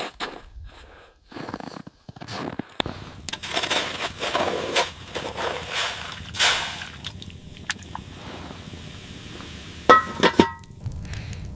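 A series of sharp knocks and clicks, then a stretch of crunching and rustling. Near the end come a few hard clinks, one with a short ringing tone.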